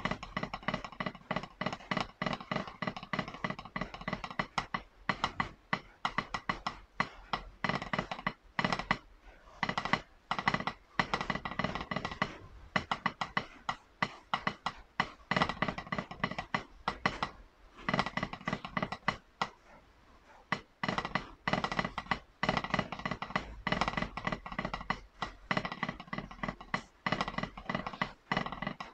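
Wooden drumsticks playing a snare drum roll etude on a practice pad: dense, fast strings of dry strokes and rolls, with a couple of brief let-ups in the middle.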